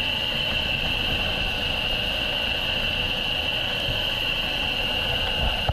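Search-and-rescue helicopter heard from inside its open cabin door while hovering: a steady rush of rotor and engine noise with a constant high whine.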